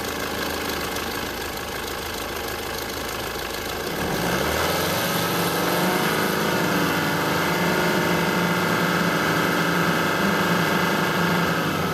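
Mitsubishi 4M41 3.2-litre common-rail four-cylinder turbodiesel idling. About four seconds in, its speed climbs over roughly two seconds to a steady higher speed of about 3500 rpm, which it holds.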